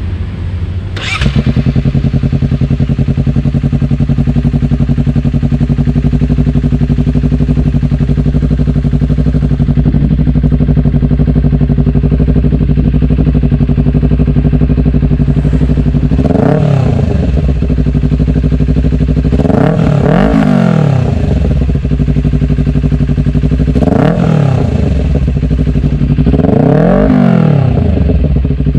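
Honda CBR250RR engine through a 3Tech EvoX X3NRC racing exhaust, firing up about a second in and settling to a steady idle. It is then blipped four times, each rev rising and falling back to idle.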